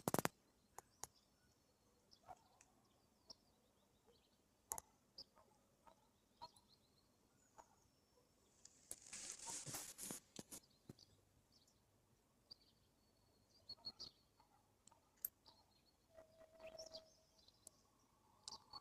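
Near silence with faint scattered clicks and taps. About nine seconds in, a brief rustling hiss lasts a second or so.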